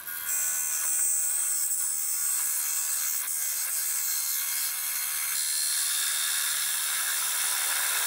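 Parting tool cutting into a wood-and-resin clock blank spinning on a wood lathe, parting it off: a loud, steady, high-pitched scraping hiss. It eases slightly after about five seconds and cuts off suddenly at the end.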